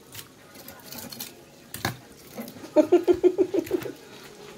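A person's voice: a quick, loud run of about ten short pitched sounds in about a second, a little after the middle, preceded by a single sharp click.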